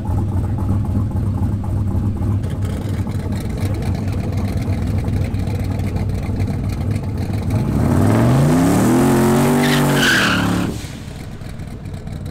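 Small Chevrolet pickup's engine idling at the start line, then about eight seconds in it launches and revs up hard, rising quickly and holding high for a couple of seconds before the sound drops off sharply.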